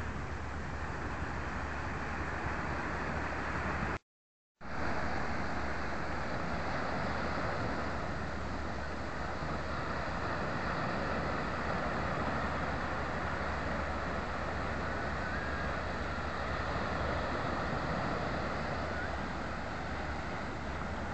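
Steady rushing seaside ambience with a constant low rumble. It drops out completely for about half a second, about four seconds in.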